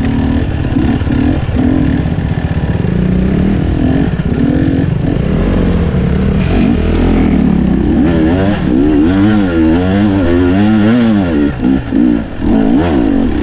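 Enduro dirt bike engine running at low revs, then from about eight seconds in revving up and down quickly as it is ridden up a steep forest slope, with a couple of brief throttle cuts near the end.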